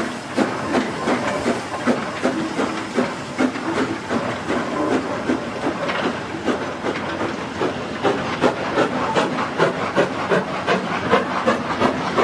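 Austerity 0-6-0ST saddle-tank steam locomotive working hard uphill, its exhaust barking in sharp, regular beats, about three a second, with the echo of the surrounding buildings. The loose-coupled mineral wagons and brake van rumble and clank past underneath.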